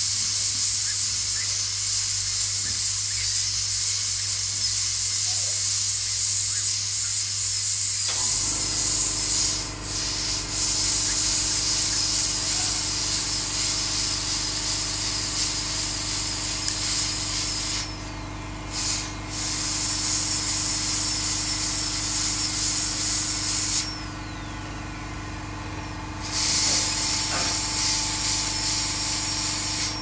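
High-speed dental handpiece running with a loud steady hiss as it cuts through a small metal bell stuck on a cockatoo's tongue; it stops briefly three times and starts again. A steady lower hum joins about eight seconds in.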